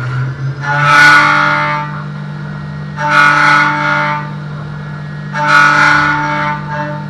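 CNC machining centre milling a 6082 aluminium plate with an end mill: a steady spindle hum, with a pitched cutting whine of about a second that comes back three times, roughly every two seconds, as the cutter engages the metal on each pass.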